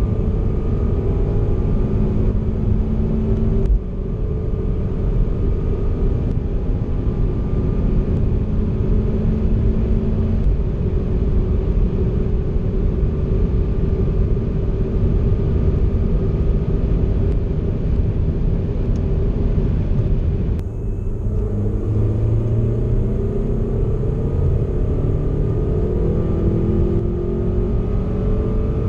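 Volvo V60 Polestar's turbocharged and supercharged 2.0-litre four-cylinder pulling hard at high speed, heard inside the cabin together with wind and tyre noise, its pitch rising slowly. About four seconds in there is a brief dip as the eight-speed automatic shifts up from fifth to sixth. About 21 seconds in the sound cuts to another run, with the engine climbing faster in pitch through a lower gear.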